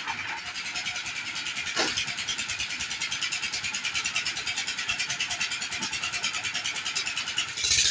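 Concrete mixer's engine running steadily with a fast, even chug, with one sharp knock about two seconds in; the sound grows louder just before the end.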